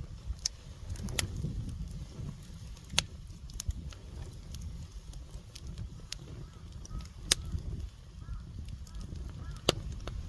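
Firewood burning in an open fire: a steady low rumble with irregular sharp crackles and pops, a few of them louder snaps.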